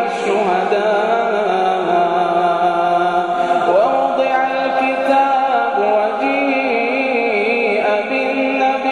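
A man's voice chanting Quran recitation in the Iraqi maqam, drawing out long, ornamented melodic notes that glide up and down without a break.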